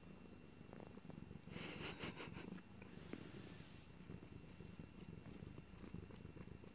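A cat purring steadily, a low fluttering rumble close to the microphone, with a brief rustle of fabric about a second and a half in.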